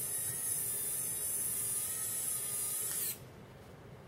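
RC4WD Warn 9.5 scale winch's small electric motor and gears running as it reels in its line. It cuts off suddenly about three seconds in, as the hook reaches the fairlead.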